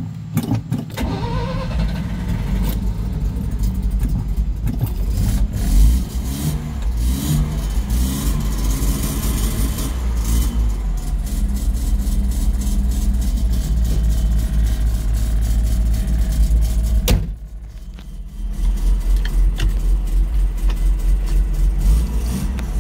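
1971 Mazda Cosmo Sport's twin-rotor Wankel rotary engine running. It is revved up and down a few times in the first several seconds, then idles fast at about 1,700 rpm. About 17 seconds in there is a sharp knock and the sound dips for a second, then the idle carries on with an even pulsing.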